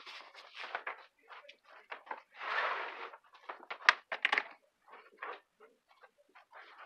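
Footsteps and the handling of power cords and plugs by a wall outlet: scattered knocks, clicks and rustles, with a brief rustling stretch in the middle and one sharp click about four seconds in.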